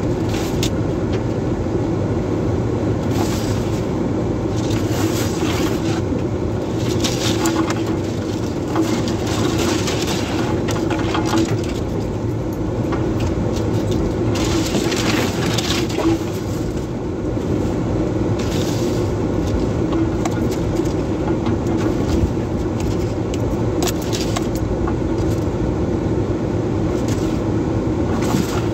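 Two-wheel-drive truck heard from inside the cab, its engine droning steadily as it ploughs through deep snow. Repeated bursts of crunching and scraping come every few seconds as snow packs against the front of the truck.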